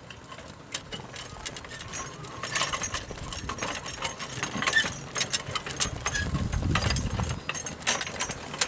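Donkey-drawn wheeled walking plow cutting a furrow: its metal frame and wheels rattle and clink in quick, irregular clicks, along with the donkey's hoof steps on the soil. A brief low rumble comes about six seconds in.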